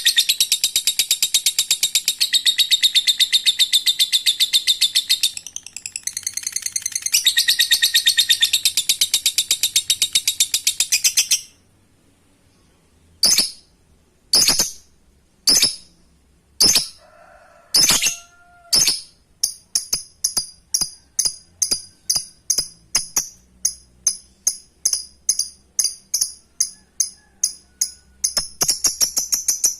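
Lovebird singing its long rapid chattering 'ngekek' song. It breaks off about 11 seconds in, gives a handful of single sharp calls, then a run of quick repeated chirps about two or three a second, and the dense chatter starts again near the end.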